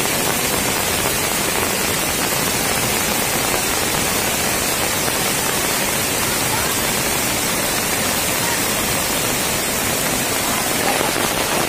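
Small stream in spate after days of continuous rain: fast, muddy floodwater rushing in a steady, unbroken wash of noise.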